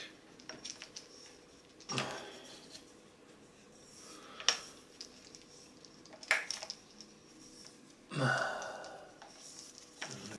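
Plastic metal detector shaft and cable being handled and screwed together: about four separate sharp clicks and knocks, the loudest around six seconds in, with a longer, duller rattle near the end.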